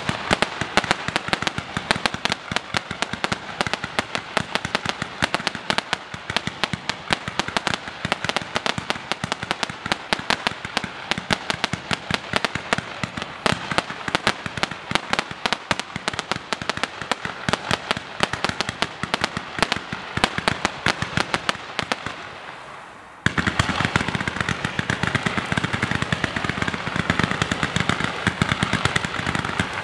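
A 228-shot consumer fireworks cake firing a rapid, continuous barrage of shots, many per second. About 22 seconds in the firing dies away briefly, then a denser final volley starts abruptly and ends at the close.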